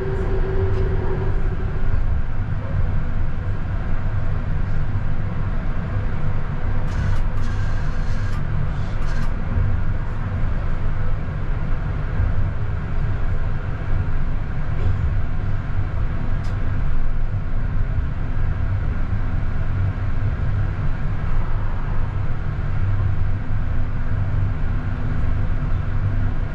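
CAF Urbos 100 tram running along the track, heard from the driver's cab: a steady low rumble with faint humming tones that come and go. A few brief sharp noises occur about seven to nine seconds in.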